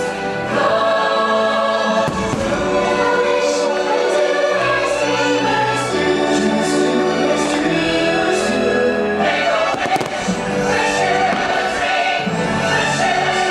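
Orchestral music with a choir singing, over fireworks bursting every second or two.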